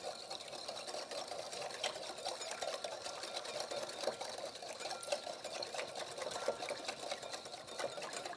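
A whisk beating a thin sherry, sugar, lemon juice and apricot jam marinade with melted butter in a ceramic bowl: a fast, steady clatter of the whisk against the bowl that stops suddenly near the end.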